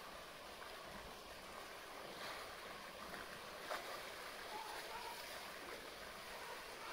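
Pool water lapping and splashing as a polar bear swims and rears up holding an orange buoy, with one sharper splash a little past halfway.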